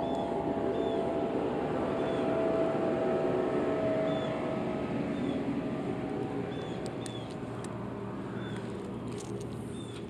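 A distant engine drones steadily with a low, even hum and slowly fades. Faint short high chirps recur every second or so, and a few light clicks come near the end.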